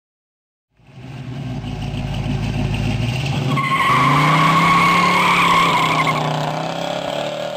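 Car engine revving with tires squealing in a burnout. The engine comes in about a second in, and a high tire squeal joins it about three and a half seconds in, then stops shortly before the end while the engine keeps running.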